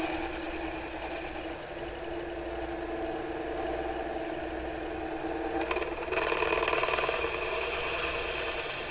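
Taig benchtop lathe running, its motor and spindle giving a steady whine. About six seconds in, a louder, rougher cutting sound sets in as a 3/8 inch twist drill fed from the tailstock bites into the workpiece.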